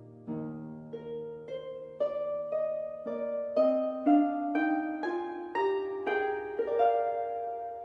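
Gentle background music: single plucked-sounding notes, about two a second, climbing step by step in a rising run, each ringing on as the next begins.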